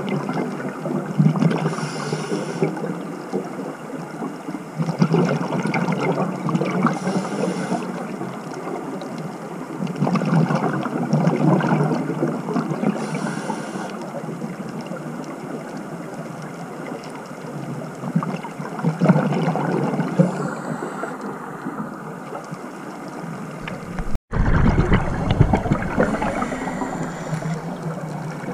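Scuba diver breathing through a regulator, heard underwater through the camera housing: a rush of exhaled bubbles every five seconds or so, with a short hiss on each inhale between them.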